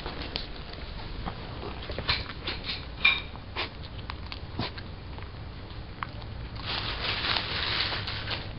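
A papillon mix dog chewing a brussels sprout: irregular crisp crunches, the sharpest about three seconds in, then a denser run of chewing near the end.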